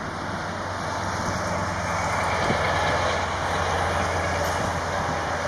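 Four CFM56 jet engines of an Airbus A340-300 running as the airliner rolls out along the runway after landing. It is a steady rushing jet noise with a low hum, swelling slightly about two seconds in.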